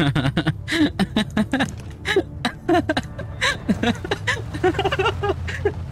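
A man laughing in a run of short, repeated bursts, with a steady low hum underneath.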